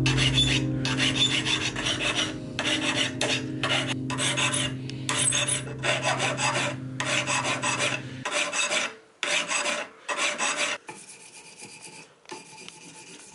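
Hand file rasping back and forth over a small metal part, in steady strokes about one to two a second; the strokes become fainter after about eleven seconds.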